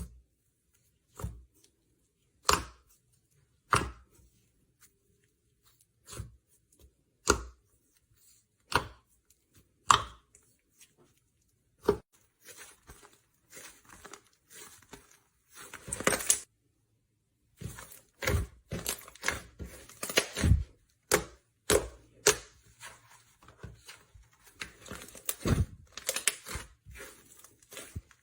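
Slime being handled, making sharp sticky crackles and pops, spaced about a second apart at first and then coming quickly one after another from about halfway through.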